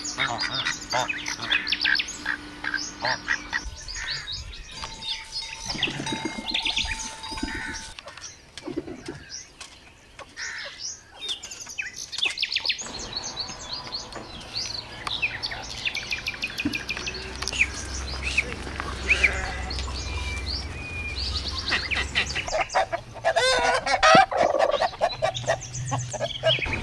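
A chorus of bird calls from a yard of mixed poultry and pigeons: rapid high chirping runs throughout, quieter for a few seconds near the middle, with a loud burst of lower, harsher calls near the end.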